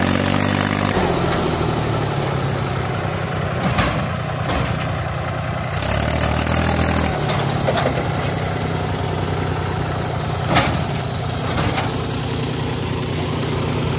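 Farm tractor's diesel engine running under load as it pulls a raised tipping trolley through dumped soil. It revs up briefly twice, right at the start and about six seconds in, with a few sharp knocks in between.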